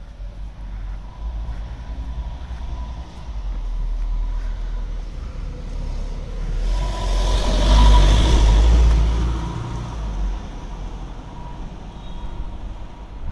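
A car passes by on the street, its noise swelling to a peak about eight seconds in and then fading, over a steady low rumble.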